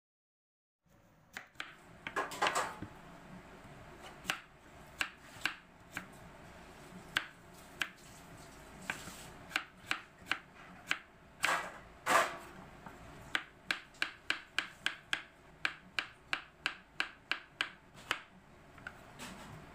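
Kitchen knife chopping apple into chunks on a wooden cutting board, each cut ending in a sharp knock of the blade on the board. The cuts come unevenly at first, then in a steady run of about three a second later on.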